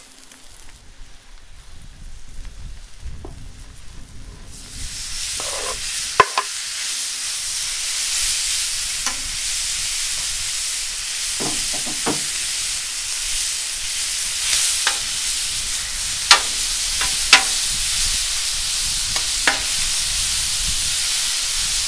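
Thin strips of raw American Wagyu sirloin tip sizzling on a hot Blackstone flat-top griddle. The sizzle jumps up suddenly about five seconds in as the meat goes onto the steel, then holds steady. Scattered sharp clicks come from a metal utensil on the plate.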